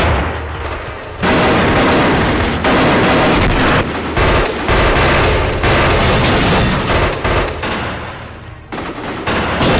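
Sustained rapid gunfire from a film shootout, with volleys of shots overlapping. It eases briefly just after the start and again about eight seconds in.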